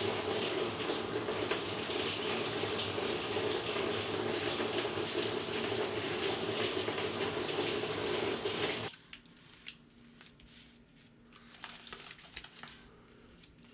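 Loud, steady running water that starts suddenly and cuts off abruptly about nine seconds in, followed by faint scattered clicks.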